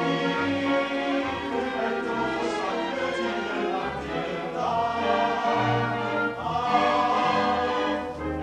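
Chorus of singers with orchestral accompaniment performing a song from a stage musical, live.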